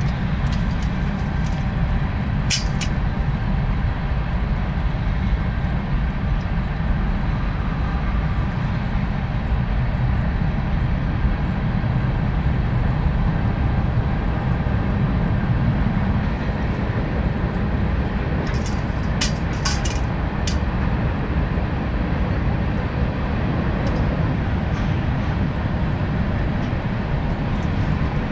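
Strong wind buffeting the microphone over the steady rumble of a train passing on nearby tracks. A few sharp clicks come about two and a half seconds in and again about two-thirds of the way through.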